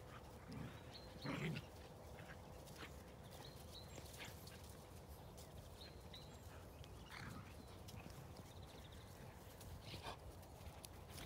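Dogs play-fighting, with a few short, low noises from them over a quiet outdoor background. The loudest comes about a second and a half in, with fainter ones later.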